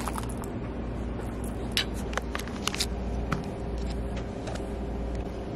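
Steady low room hum inside a shop, with a handful of light taps and rustles of handling between about two and three and a half seconds in.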